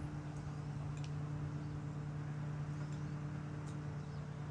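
Steady low mechanical hum, as of a running motor, with a few faint clicks from people eating with forks.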